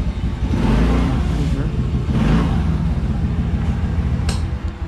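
TVS Ntorq 125 scooter's single-cylinder engine running at low speed, swelling twice, then dropping away just before the end.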